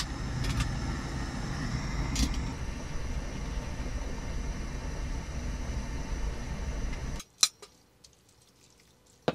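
Camp stove running under a fry pan of noodles and sauce: a steady rushing noise with a low rumble, which cuts off abruptly about seven seconds in.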